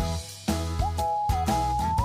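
Background music: an upbeat track with a drum beat and a whistled-style melody line that holds a long note near the end.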